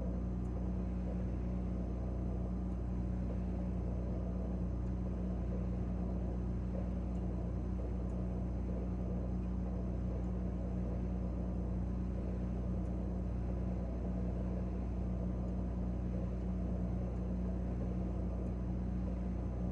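Refrigerator compressor running with a steady low hum.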